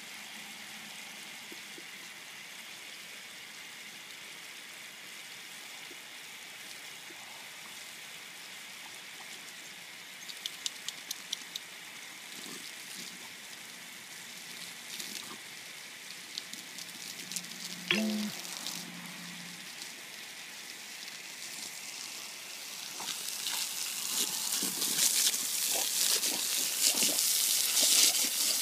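A garden hose's jet of water spraying with a steady hiss, turning to louder splashing on concrete near the end. A quick run of clicks a little after ten seconds in and a short pitched call about two-thirds of the way through.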